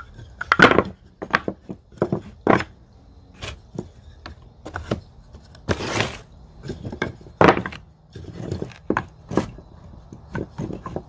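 Small plywood risers knocking and clattering against each other and the table as they are picked up and stacked into a cardboard box: irregular wooden clacks and knocks, some louder than others.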